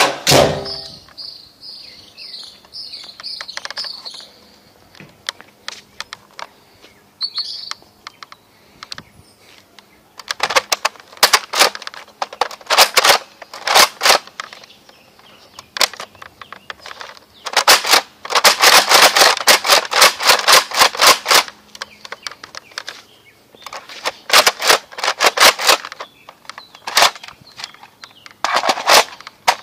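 Tek Recon toy blaster firing in rapid bursts of sharp clicks, several bursts in a row, the longest running about four seconds.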